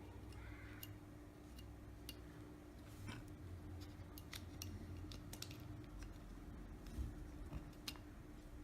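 Light, scattered clicks and taps of small phone parts being handled: an LG V20 motherboard and its ribbon cables being moved and seated into the phone's frame.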